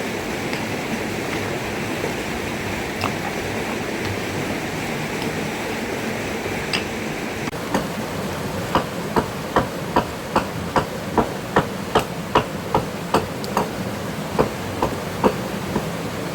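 Steady rushing water noise throughout. From about halfway, a long run of sharp, even knocks, about two and a half a second, like a tool striking wood by hand.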